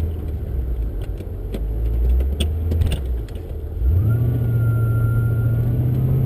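Supercharged 6-litre V8 of a VE Commodore ute, heard from inside the cabin. It runs low for about three seconds and dips briefly, then picks up about four seconds in and holds at higher revs with a thin whine over it, as the ute drives off through its manualised 4L80E gears.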